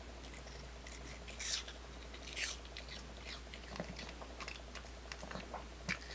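A dog biting and chewing pieces of apple: irregular crisp crunches, two louder bites in the first few seconds, then a run of smaller chews.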